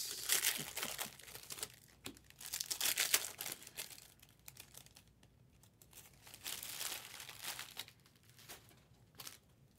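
Foil wrapper of a Bowman Draft Sapphire baseball card pack being torn open and crinkled by hand, in irregular rustling bursts that grow quieter and sparser after about four seconds.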